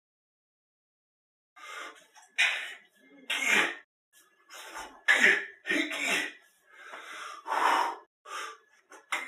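A man huffing and puffing: about ten sharp, breathy blasts of breath, some with voice in them, starting about a second and a half in.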